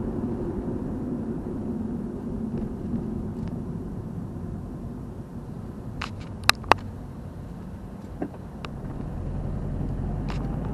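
Car driving, heard from inside the cabin: a steady low rumble of engine and tyres that eases off around the middle and builds again near the end. A few sharp clicks come just past the middle.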